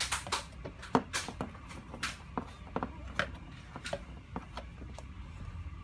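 Irregular scrubbing strokes and sharp knocks as algae is rubbed off a hydroponic growing tray.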